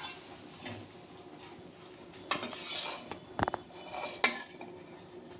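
A metal spatula scrapes and clinks against a tawa as a cooked omelette is lifted off it. There are a few scraping passes and sharp clicks, the loudest a little past the middle.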